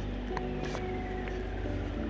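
Background music: held notes that shift every half second or so over a steady low bass.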